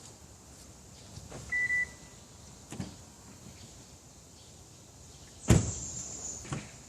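A short single beep from the car's aftermarket alarm. Later comes a loud clunk, then about a second of electric motor whine from the car's power accessories, ending in a click.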